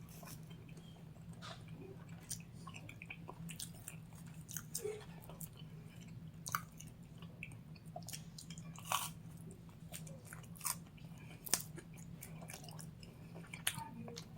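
Close-up chewing of thin-crust pepperoni pizza, with scattered wet mouth clicks and smacks over a faint steady hum.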